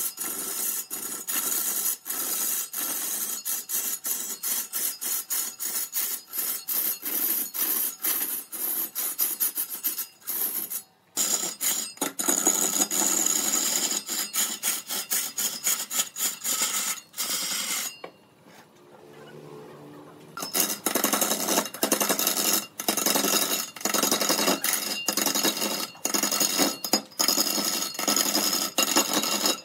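A hand tool rubbing and rasping across wood in fast, repeated strokes, pausing briefly twice.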